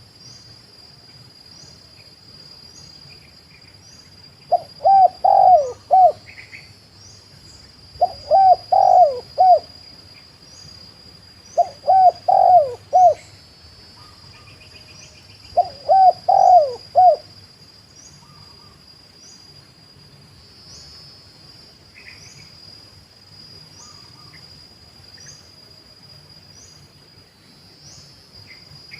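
Spotted dove cooing in four bouts of several rolling coos each, a few seconds apart. A faint steady high-pitched whine with regular small ticks runs behind.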